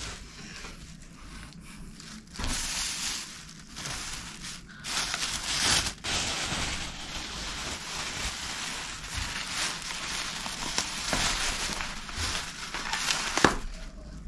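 Thin plastic carrier bag crinkling and rustling as it is pulled off a takeaway food box and crumpled by hand, starting about two seconds in.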